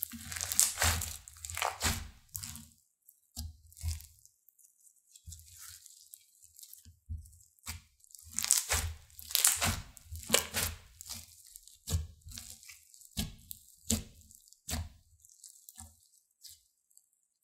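Slime full of foam beads squeezed and stretched by hand: crunchy crackling and squishing in irregular bursts, loudest about a second in and again around the middle, with short quiet pauses between.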